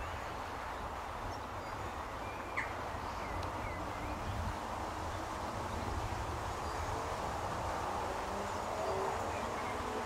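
Riverside ambience: a steady low wind rumble on the microphone, with a few short, high bird chirps and a single click about two and a half seconds in.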